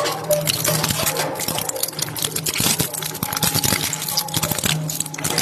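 Electric shredder running, its blades crunching through material in dense, irregular crackles over a steady motor hum.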